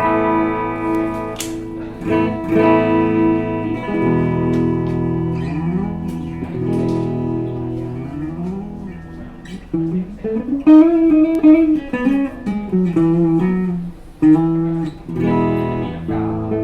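PRS Custom 24 electric guitar being played. Chords ring out for the first few seconds, then single-note lines follow, with notes bent up and down in pitch and louder picked notes in the second half.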